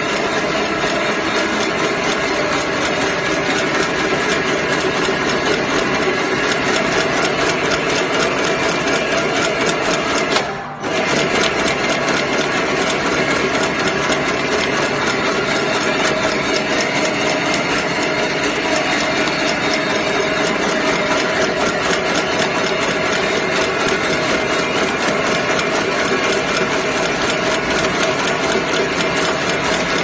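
High-speed three-axis broom tufting machine running, its tufting head clattering in a rapid, even rhythm as it sets bristle tufts into a broom head. The clatter drops out for a moment about a third of the way through.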